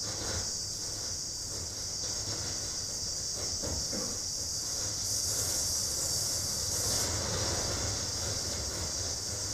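Steady, high hiss of filtered electronic noise over a low rumble, from a psychoacoustic sound installation, growing brighter for about two seconds in the middle.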